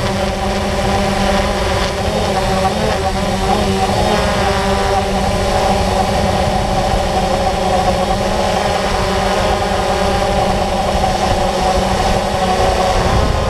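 Multirotor drone's motors and propellers running with a steady multi-tone whine, heard close up from the camera on board, over a low wind rumble. The pitch wavers a few seconds in as the drone manoeuvres, then holds steady.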